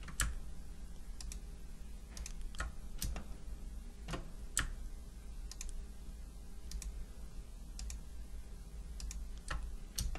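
Computer mouse clicking about a dozen times at irregular intervals, selecting edges in CAD software, over a low steady hum.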